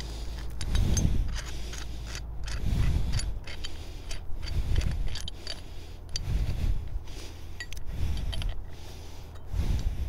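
Steel wire rope and rigging hardware, a shackle and a snap hook, scraping and clinking as they are handled, with many small sharp clicks. A low thump comes roughly every two seconds, six times in all.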